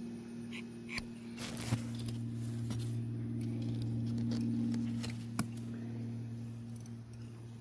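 A steady low electrical hum, with a few sharp clicks about one, two and five seconds in and light rustling over it.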